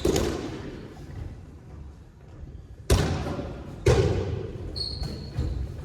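A few heavy thuds with a short ring after each: one at the start, one about three seconds in and another a second later. A brief high squeak comes near the end.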